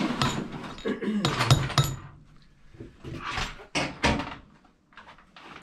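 Metal hand tools clanking and rattling: several sharp clanks as tools are handled and picked out of a tool chest.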